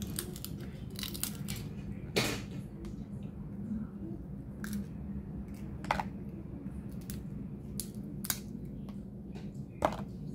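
Cooked snow crab leg shells being cracked and picked apart by hand: four sharp snaps roughly two seconds apart, the last the loudest, with small clicks and crunches of shell between them.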